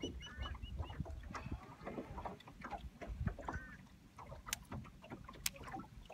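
Small waves lapping against a fishing boat's hull over a low rumble, with a rapid high ticking in the first second and a few sharp clicks near the end.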